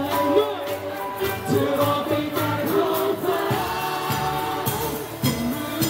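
Live acoustic pop song: several male voices singing together into microphones over acoustic guitar, with the crowd singing along and clapping in time.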